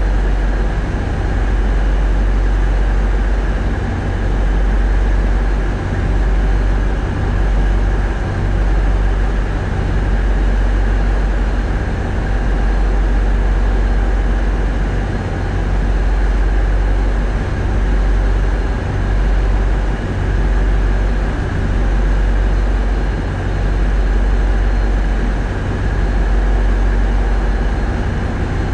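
Tugboat's diesel engines running under steady load, heard from the wheelhouse: a heavy low drone whose deep rumble swells and dips every second or two, with a thin steady whine above it.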